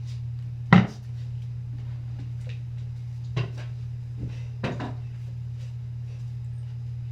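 A utensil knocking against a mixing bowl a few times as slime is stirred, the loudest knock under a second in, over a steady low hum.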